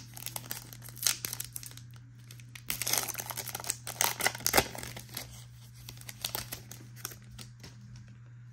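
Foil wrapper of a Donruss basketball card pack crinkling and tearing as it is peeled open by hand, in bursts of sharp crackles that are busiest around one second in and from about three to nearly five seconds in. A steady low hum runs underneath.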